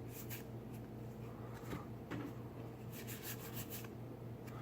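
Magic: The Gathering cards being flipped through by hand, with soft flicks and rubs of card against card in short runs, over a faint steady low hum.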